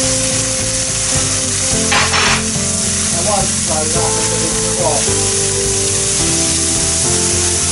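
Salmon fillet just laid into hot olive oil in a non-stick frying pan, frying with a loud, steady sizzle.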